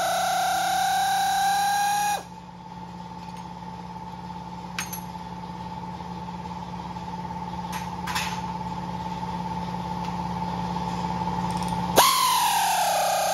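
Air compressor motor running with a high whine, shutting off about two seconds in and winding down. It starts up again near the end with a sudden rise in pitch. In between there is a quieter steady hum and a couple of light metal clinks.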